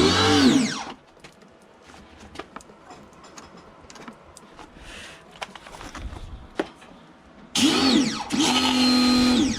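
Parkside PHD 110 pressure washer's 1300-watt electric motor switching on: a short burst that spins up and winds down within about a second, then scattered clicks, then the motor running again for the last two seconds, settling to a steady pitch.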